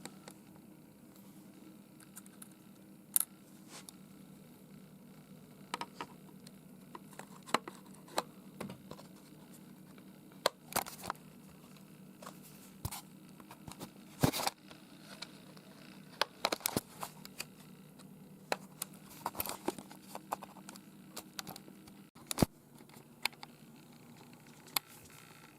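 Scattered sharp clicks and taps at irregular spacing from parts and tools being handled while a Yamaha P525 digital piano is taken apart for repair, over a low steady hum.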